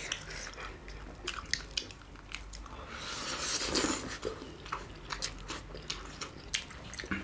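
Close-up eating sounds of two people eating spicy black bean noodles and a large chicken momo: wet mouth clicks, biting and chewing, with a long noisy slurp of noodles about three seconds in, the loudest sound.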